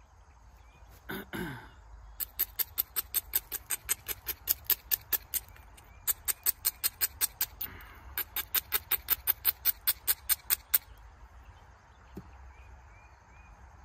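A flint edge being rubbed with an abrading stone in quick, even scratching strokes, about four a second, in three runs with short pauses. A brief knock and rustle comes about a second in.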